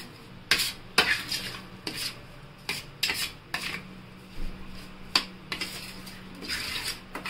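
Steel spoon clinking and scraping against a stainless steel plate while stirring mango pieces into an oily spice mix, in irregular knocks and scrapes.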